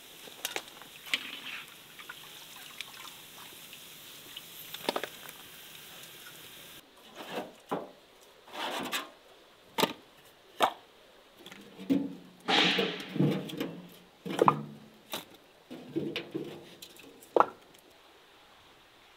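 A soft frying hiss with a few light clicks, then, from about seven seconds in, split firewood logs dropped one by one into a metal wheelbarrow: about a dozen hard wooden knocks and clunks, loudest midway.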